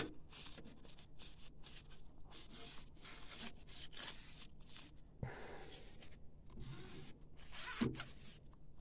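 Irregular rustling and rubbing as the printer's carriage shaft is wiped clean of ink, with a single knock about five seconds in.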